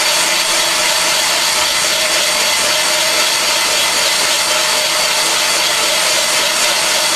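Van Norman 777 boring bar running steadily as its cutter spins and bores out an engine cylinder, a continuous machine drone with a faint steady whine in it.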